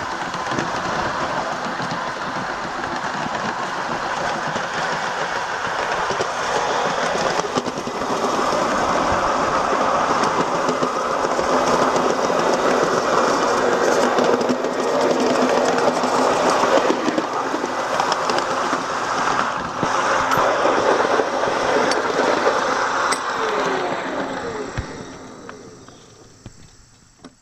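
Miniature ride-on train running along its track: a steady rumble and rattle of the wheels on the rails, growing louder after about eight seconds and fading away near the end.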